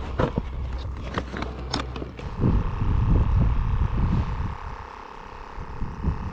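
Wind buffeting the camera microphone in low, uneven gusts, louder from about two seconds in. Over it, in the first two seconds, a run of sharp clicks and knocks from hands handling a plastic ice-fishing tip-up.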